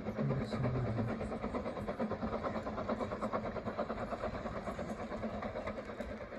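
Steam locomotive working away down the line, its exhaust beats coming in a quick, even rhythm that slowly fades as it draws away.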